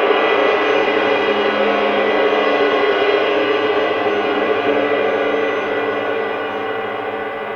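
A large gong ringing out after a single strike, many steady overtones sounding together and slowly fading.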